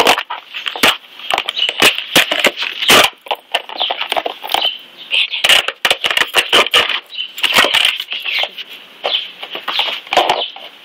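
A dog chewing and gnawing a plastic frisbee, with a dense run of irregular clicks and scrapes as teeth, claws and the disc knock against a wooden deck.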